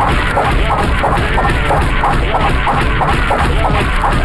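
A rapid, evenly spaced series of cartoon punch sound effects, about three blows a second, as a fist pummels someone on the ground.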